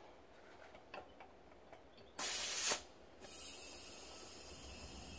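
Compressed air from a shop compressor charging a fire-extinguisher tank through its Schrader valve. There are a few faint clicks first, then a short loud blast of air a little after two seconds in, then a steady hiss with a faint whistle from about three seconds on as the air flows in to fill the tank to just under 90 psi.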